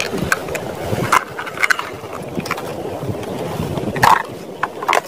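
Plastic toy cars being handled and set down on wet gravel: several short clicks and scrapes, the loudest a little after four seconds in, over a steady rush of flowing water.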